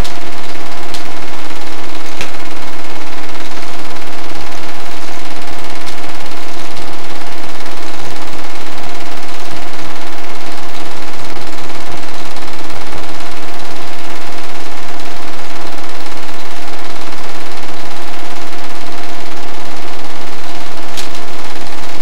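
8mm film projector running: a steady mechanical whir with a constant hum, unchanging throughout.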